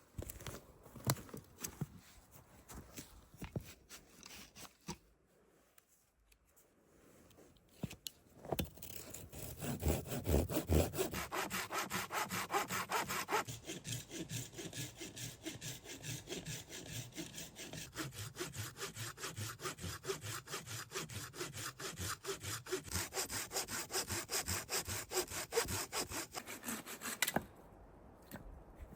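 Hand saw cutting through wood in fast, even strokes, starting about nine seconds in and stopping suddenly near the end. Before it, scattered knocks and clicks.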